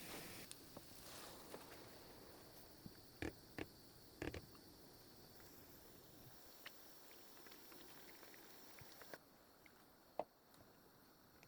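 Near silence: faint hiss with a few light clicks and knocks, two close together a little past three seconds, another about four seconds in and one near ten seconds. The hiss fades out about nine seconds in.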